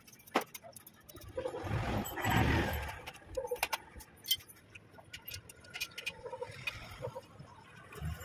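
Scattered light metallic clinks and rattles from hand work on a motorcycle's rear wheel, drive chain and sprocket.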